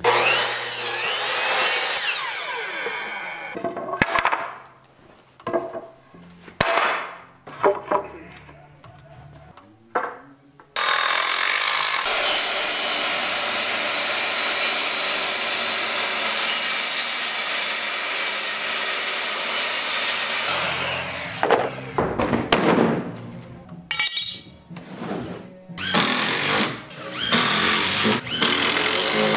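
Power tools cutting and fastening wood. A miter saw runs and cuts a board at the start, with short bursts after it. A circular saw then runs steadily for about ten seconds through a sheet of plywood, and near the end a cordless drill/driver drives screws in short bursts.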